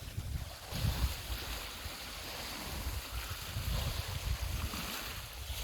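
Lake Superior waves washing on the rocky shore below, with a breeze rumbling on the microphone.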